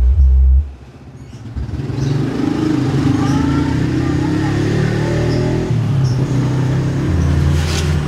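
Wisdom SW 12A 12-inch active subwoofer playing a bass-heavy demo track at high volume: deep bass notes that step in pitch. The bass drops out for about a second near the start, and gliding higher tones run over it in the middle.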